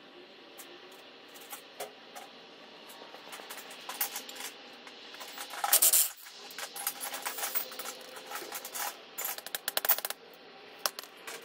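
Hand tools working a stuck 9/16 bolt on a truck frame: a run of sharp metallic clicks and clinks, loudest and densest from about six to ten seconds in.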